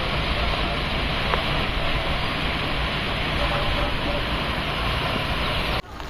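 Steady rushing noise of wind and fast-flowing floodwater on a swollen river. It cuts off abruptly near the end.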